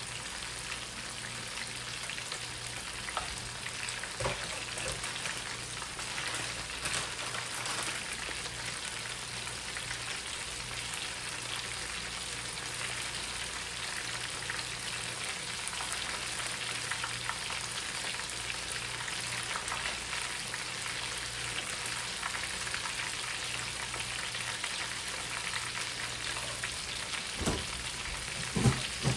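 Chicken frying in hot oil: a steady sizzling hiss, with a couple of brief knocks near the end.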